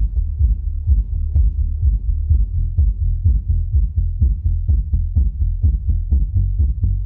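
Sanway Audio SUB9006AS active dual 18-inch subwoofer playing bass-heavy music loudly, with deep thudding beats that repeat several times a second and come faster about halfway through.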